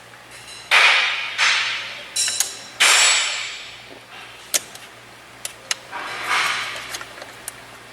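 Mechanical noise from a car headrest's locking mechanism being worked while powered by jumper leads: four short rattling bursts, the last one softer and longer, with sharp clicks in between.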